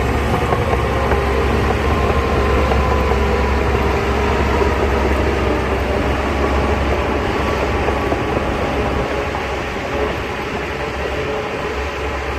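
Bulldozer's diesel engine running steadily, with a metallic squeal wavering over the rumble; it eases off slightly near the end.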